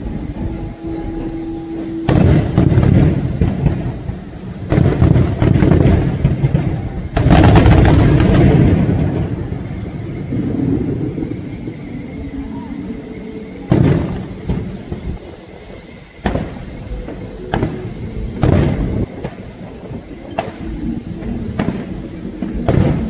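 Fireworks display with aerial shells bursting. The first half is a dense, rumbling run of booms with a long echoing tail. After that come separate sharp bangs every second or two.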